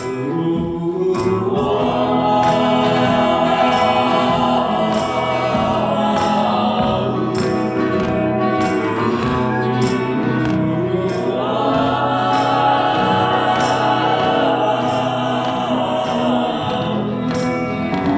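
Music: the instrumental break of a slow Christmas ballad. A backing choir sings two long wordless phrases over the band, with no lead vocal.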